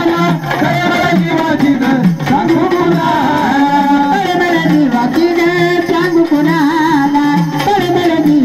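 Marathi gondhal folk song: a singer's ornamented, wavering vocal line over regularly repeating drum strokes.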